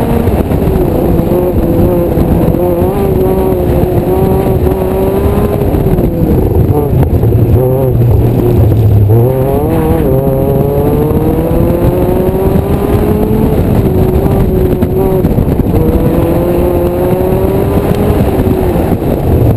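Mazda MX-5 Miata's four-cylinder engine being driven hard through an autocross course, its revs repeatedly climbing and falling off as the driver accelerates and lifts between cones. About halfway through, the revs dip sharply and then climb again.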